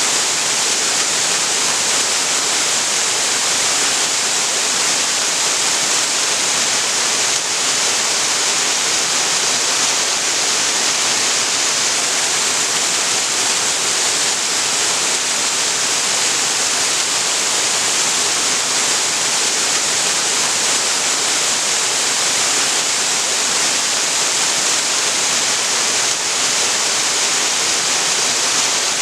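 Waterfall pouring steadily into a creek pool, a dense, unbroken hiss of falling water.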